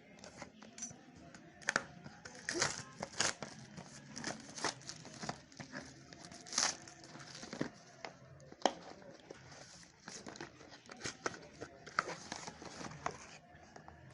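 A phone's retail box being unboxed by hand: irregular crinkling, tearing and rustling of the packaging, with scattered sharp clicks.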